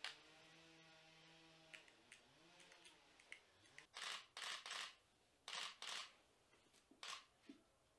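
Faint rustling and scuffing of rubber boots and baggy cloth trousers as someone pulls the boots on, in a few short bursts about four, five and a half and seven seconds in.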